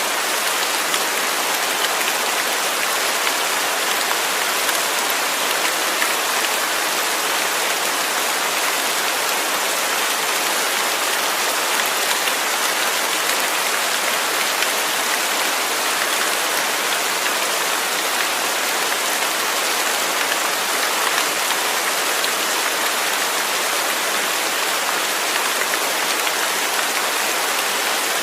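Steady rain falling, with no thunder: an even hiss of drops on a surface.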